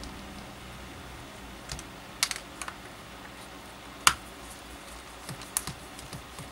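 Scattered sharp plastic clicks and snaps as the clamshell housing of a Milwaukee M12 drill is worked loose and pulled apart by hand. The loudest snap comes about four seconds in.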